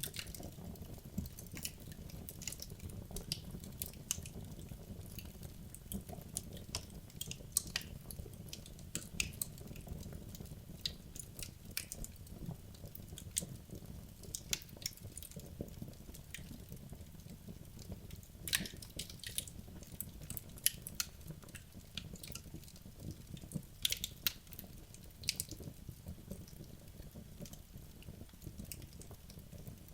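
Wood logs burning in a fireplace, crackling with frequent irregular sharp pops and snaps, some louder than others, over a low steady rumble of the flames.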